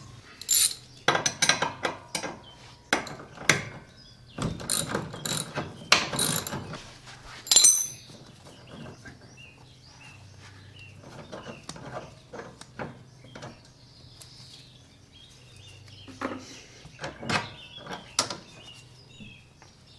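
Ratchet spanner clicking and metal tool clinks while adjusting the track rod end on a lawn tractor's front steering, with runs of quick clicks over the first half that thin out and grow fainter later.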